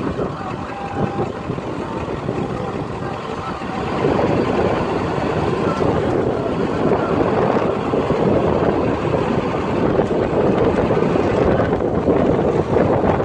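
Steady rumble of a slow-moving vehicle with road noise and wind buffeting the microphone, getting louder about four seconds in.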